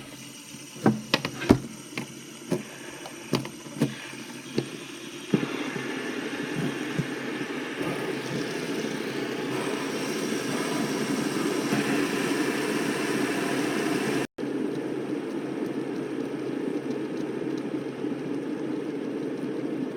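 A run of sharp clicks and taps as fidget spinners are flicked into spin one after another, then a steady whirring of several spinners spinning at once.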